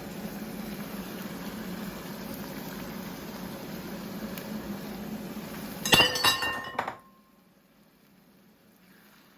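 Pot of stew sauce simmering with a steady bubbling hiss; about six seconds in, a quick run of loud ringing clinks, then the sound drops abruptly to near silence.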